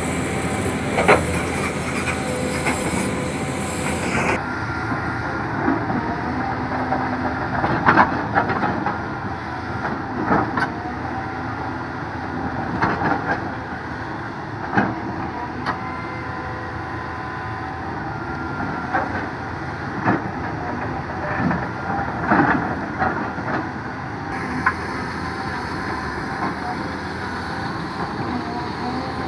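Cat excavator's diesel engine running steadily with a faint hydraulic whine, while the bucket digs soil, giving irregular metallic clanks and knocks every few seconds.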